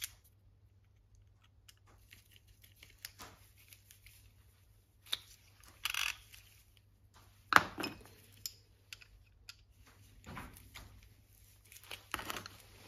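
Scattered small metal clicks and scrapes as a screwdriver fits a small screw into a socket ratchet's head, with a few sharper clicks of tools knocking together.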